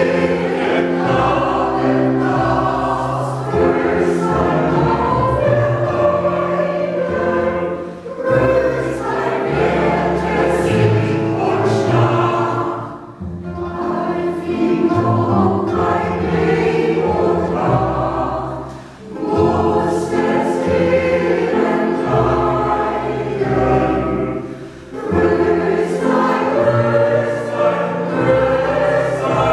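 A mixed choir singing a song in sustained phrases, accompanied by a mandolin orchestra, with brief breaks between phrases every five or six seconds.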